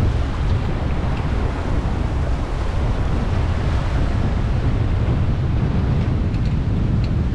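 Strong wind buffeting the microphone, a steady low rumble, over the rushing, breaking sea around the stern of a small sailing yacht running through rough ocean.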